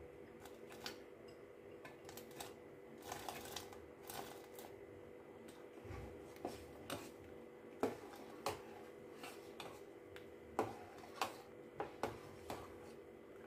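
Steel ladle clinking and scraping against a steel pot of milk while mava is stirred in: scattered light taps, about a dozen, over a faint steady hum.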